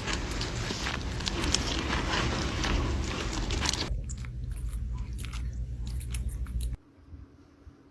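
Kittens eating, a busy run of small chewing and smacking clicks; the sound cuts off abruptly near the end.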